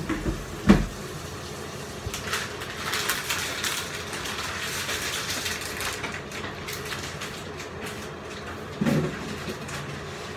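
Kitchen sounds over a steady low rumble from the lit gas stove: a sharp knock just under a second in, a hissing rustle from about two to six seconds, and a short dull sound near the end.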